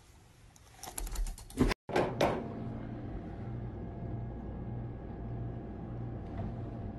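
A brief flurry of clicks and a thud about a second in. Then a metal ice cream scoop scrapes through a tub of ice cream, starting with two sharp knocks, over a steady low hum.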